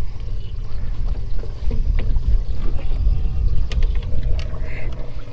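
Low, steady rumble of wind on the microphone in an open bass boat, with a few light clicks and knocks as a largemouth bass is handled, unhooked and put toward the livewell.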